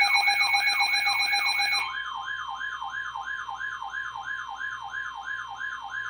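Emergency alert tone: a siren sweeping rapidly up and down, about three and a half times a second, over steady alert tones. The louder steady tones drop out about two seconds in, leaving one steady tone under the sweeps.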